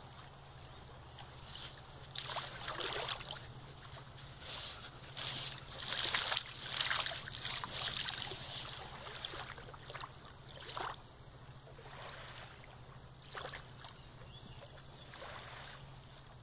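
German shepherd digging in sand: irregular bursts of paws scraping and flinging sand, busiest and loudest in the middle, over a steady low hum.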